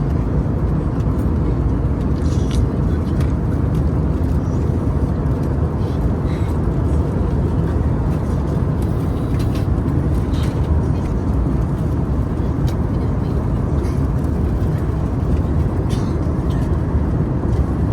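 Steady, loud low rumble of an airliner cabin in flight, the engine and airflow noise holding even, with faint voices now and then.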